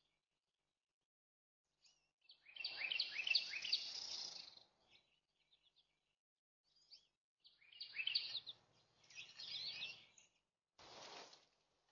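Eastern bluebird singing two short warbled phrases of quick falling notes, a few seconds apart. A short burst of rustling noise follows near the end.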